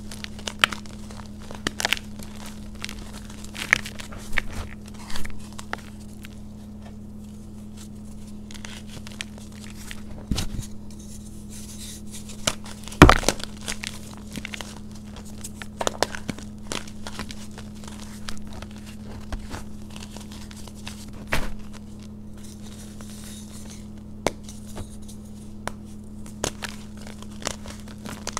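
Lumps of yellow reformed chalk crushed and crumbled by hand in a bowl of loose powder: irregular soft crunches and crackles, with one sharper, louder crack about thirteen seconds in.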